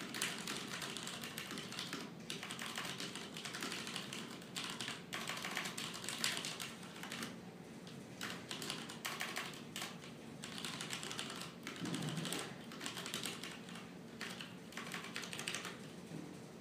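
Typing on a CM Storm QuickFire XT mechanical keyboard with Cherry MX Brown switches: a dense, fast stream of key clacks, broken now and then by short pauses.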